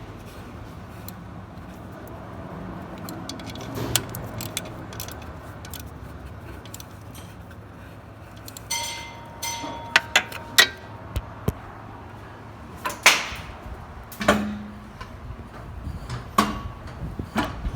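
Hand wrench and ratchet on the engine mount's 15 mm bolts: scattered sharp metal clicks and clinks, mostly in the second half, as the bolts are tightened.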